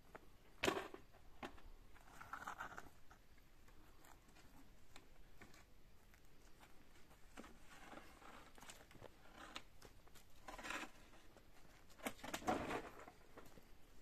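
Wooden poles being handled and laid onto a barn's pole-frame roof: scattered knocks and scraping of wood on wood, with a sharp knock about a second in and a louder clatter near the end.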